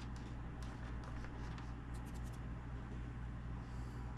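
Faint handling noises, a few light clicks and scrapes with a cluster about two seconds in, over a steady low hum.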